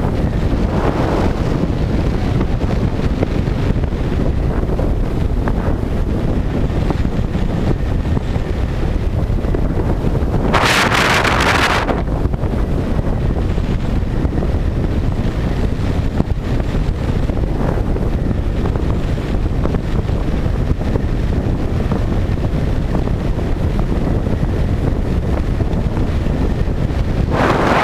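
Wind rushing and buffeting over the microphone of a bike-mounted camera while riding. A brief, brighter hiss rises over it about ten seconds in.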